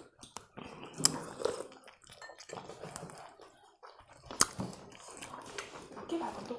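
Close-miked chewing and lip-smacking of a person eating chicken momos (steamed dumplings) with her fingers, with a few sharp clicks about a second in and around four and a half seconds.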